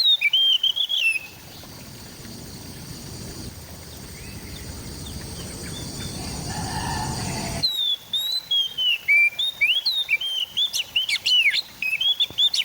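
Oriental magpie-robin (kacer) song: loud, rapid whistled phrases of sweeping, up-and-down notes. After about a second the song breaks off, leaving a low rumbling noise that slowly swells, and about eight seconds in the rumble stops abruptly as the song cuts back in, quicker and denser.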